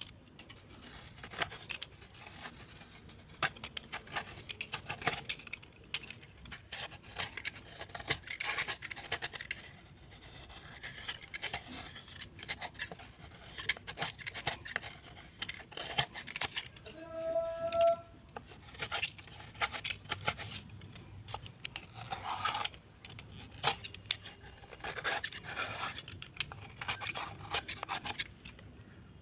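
Soaked white slate or chalk being handled, crumbled and scraped: a dense, irregular run of crunching, scraping clicks, with a short squeaky tone about 17 seconds in.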